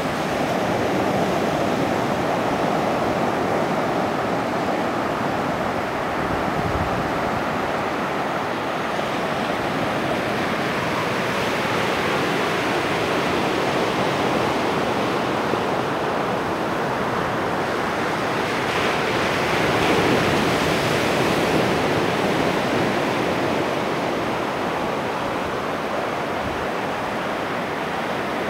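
Ocean surf breaking and washing up a sandy beach in a continuous rush, swelling a little about two-thirds of the way through.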